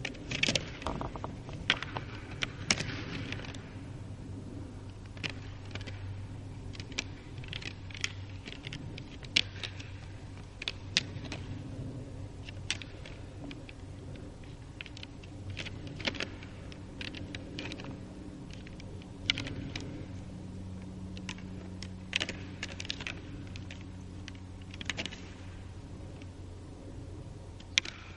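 Two fallow deer bucks fighting with locked antlers: irregular clicking and clacking of antler on antler, with a few sharper knocks scattered through.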